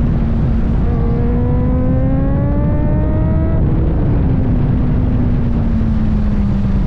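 Kawasaki ZX-4RR's 399 cc inline-four engine running at high revs under way, with heavy rumble from wind on the microphone. About a second in, the engine note climbs steadily for a couple of seconds, then drops away suddenly past the halfway mark, leaving a steady tone that sinks slowly.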